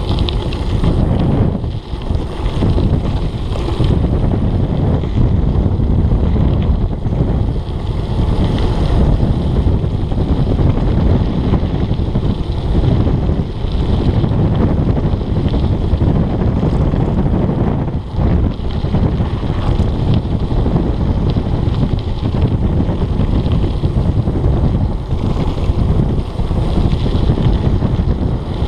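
Mountain bike speeding down a dirt and gravel road: a steady low rumble of wind buffeting the microphone together with tyre and frame noise over the rough surface.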